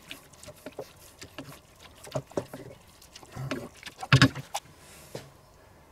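Wooden spatula stirring a thick, chunky stew with cream in a cast-iron Dutch oven: soft wet scraping with scattered clicks and knocks against the pot, the loudest knock about four seconds in.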